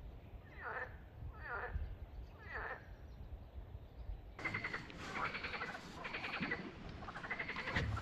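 Animal calls: short falling calls repeated about once a second, then from about four seconds in a dense, rapidly pulsed chattering chorus.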